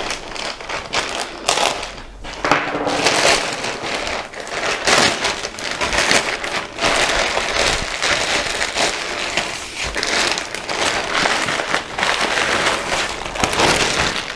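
Parcel packaging crinkling and rustling as it is handled and opened by hand, in irregular bursts.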